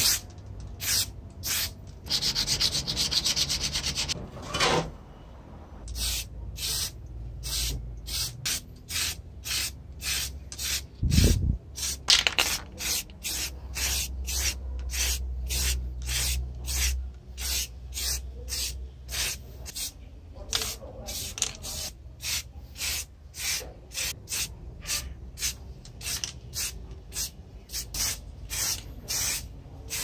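A steady hiss for the first few seconds, then rhythmic rubbing strokes, about two a second, with a dull thump about eleven seconds in.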